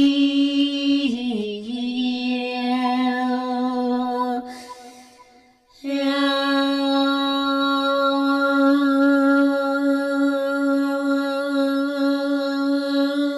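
A woman's voice chanting long held notes in a mantra. The first note slips down a little about a second in and holds; there is a pause for breath about four and a half seconds in, then one long steady note at the first pitch.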